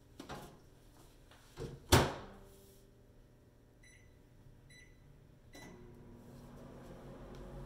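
Microwave oven being used: knocks and a loud clack of the door being shut, then short keypad beeps as the time is set and started. From about five and a half seconds the oven runs with a steady hum.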